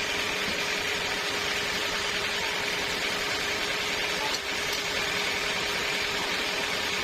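Sawmill machinery running steadily: an even mechanical hiss with a constant hum and a high whine, with no change in load.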